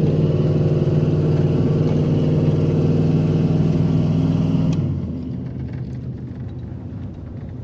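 Ram 4x4 pickup's engine running steadily, then easing off to a quieter idle just under five seconds in, marked by a single click.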